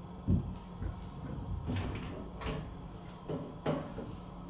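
A dull thump about a third of a second in, then a few light knocks and clicks, like a door or cupboard.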